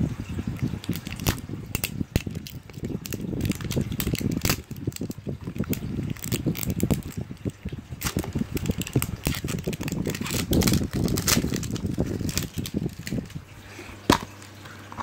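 Plastic shrink-wrap on a plastic surprise egg being crinkled and peeled off by hand, a busy run of small irregular crackles and rustles. A sharp click comes near the end as the egg is gripped to open.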